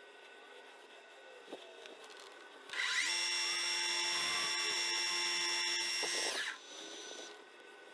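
Metal lathe spindle starting up about three seconds in with a brief rising whine, then running with a steady high-pitched gear whine for about three and a half seconds while a boring bar takes a pass in the chucked part's bore. It is then switched off and winds down quickly.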